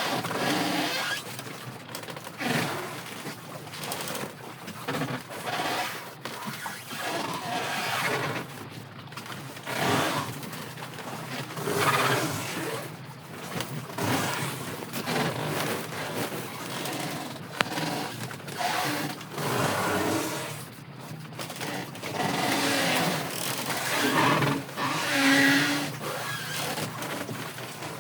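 Strong wind and waves at sea, loud and unsteady, surging every few seconds.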